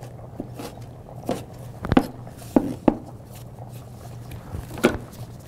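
A kitchen knife knocking on a cutting board: about half a dozen irregular sharp knocks, the loudest about two seconds in and near the end.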